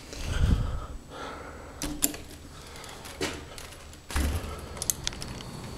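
A metal door's push handle clunking as the door is pushed open, with a sudden thud about four seconds in, and a few sharp clicks before and after it.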